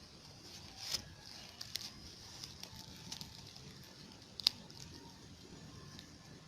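Faint rustling and crackling of a squirrel's nest of dry plant material being parted by hand, with a few sharp clicks. The loudest click comes about four and a half seconds in.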